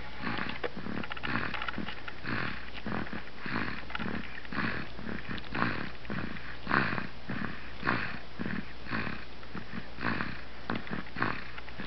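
A young girl snoring, a quick run of rough, snorting breaths about two a second.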